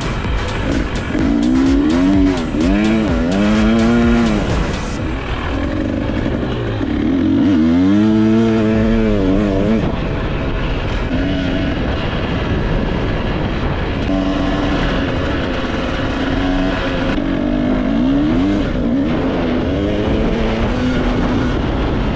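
A Husqvarna TE300 two-stroke enduro motorcycle engine revving up and down repeatedly as it is ridden along a sandy trail, then running more steadily in the second half.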